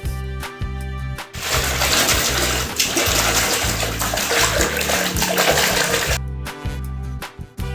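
Background music with a steady beat; from about a second and a half in until about six seconds, a rush of running water over it that stops abruptly.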